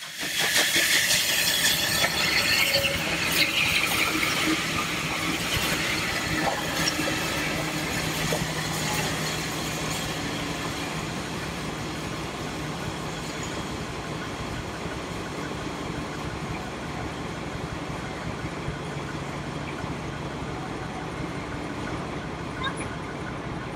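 Railway coaches rolling past with wheels squealing on the rails, loudest in the first few seconds and easing off into a steady rumble, with a steady engine hum underneath.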